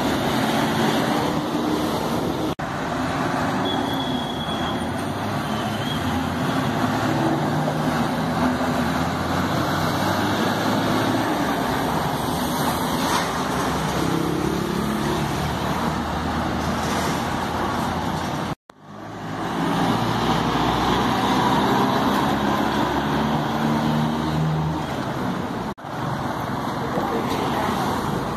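Street traffic: city buses and cars driving past, their engines running in a steady hum of road noise. The sound breaks off for a moment about two-thirds of the way through.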